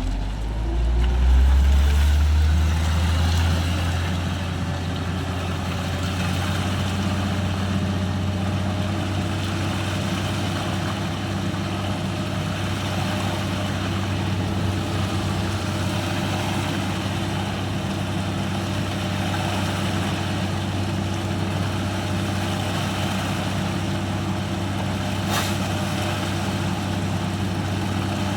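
Diesel engine of a Hino concrete mixer truck rising in pitch over the first few seconds, then running steadily. A single brief click near the end.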